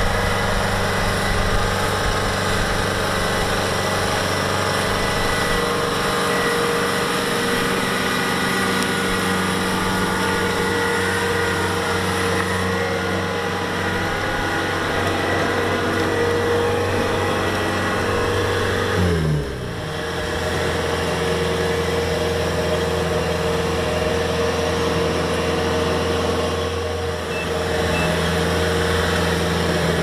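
Kubota DC-70 combine harvester's diesel engine running steadily under the rattle of the machine. About two-thirds of the way through, the engine note drops in pitch, then settles and runs steady again.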